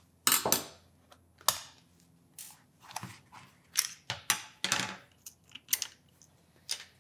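Sharp plastic clicks and knocks, about a dozen at irregular intervals, from a plasma cutter torch's handle being unscrewed with a screwdriver and its two shell halves pried apart.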